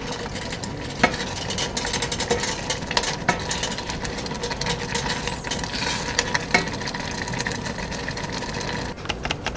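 A kitchen utensil stirring, with scattered light clicks and scrapes against the cookware over a steady background hum.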